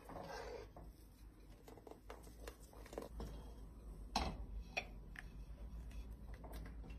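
Faint scattered clinks and taps of a metal spoon and ladle against a steel cooking pot and ceramic dishes as soup is stirred and ladled out, the sharpest clink about four seconds in.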